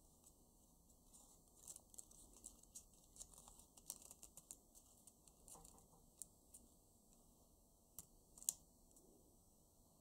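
A banknote being creased and folded by hand: faint, irregular crinkles and small crackles of stiff paper. The sharpest crackle comes about eight and a half seconds in.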